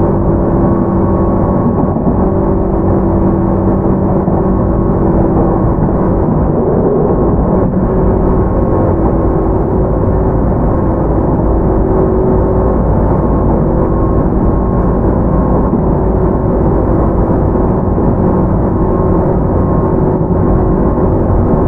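Tobu 10030 series field-chopper-controlled electric train heard from inside motor car MoHa 14437, running at a steady speed. A steady traction-motor hum with several held tones sits over the dense rumble of the wheels on the rails.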